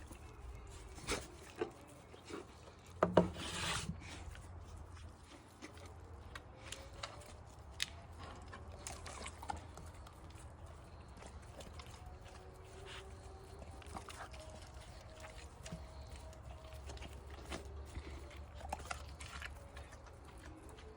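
Dog eating raw food: irregular chewing and smacking clicks, with one louder knock about three seconds in.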